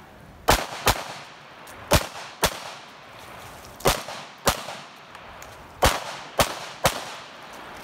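Nine pistol shots from a single-stack 1911 fired on a practical-shooting stage, each followed by a brief echo: three pairs about two seconds apart, then three quick shots near the end.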